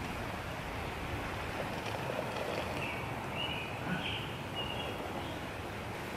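Outdoor background: a steady hiss of open air, with a bird chirping a few short high notes in the middle.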